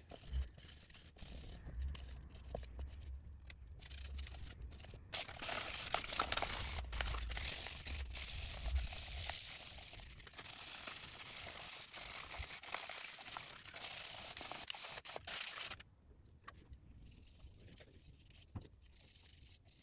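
A cloth rubbing over grey PVC drain fittings, wiping them clean with PVC cleaner before gluing. There is a dry scrubbing hiss from about five to sixteen seconds in, with small clicks and knocks as the plastic fittings are handled, then it goes quieter near the end.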